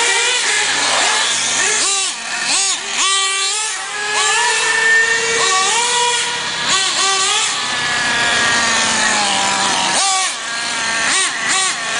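Small nitro (glow-fuel) engine of a radio-controlled buggy running hard, its high-pitched whine revving up and down over and over as the car accelerates and slows through turns.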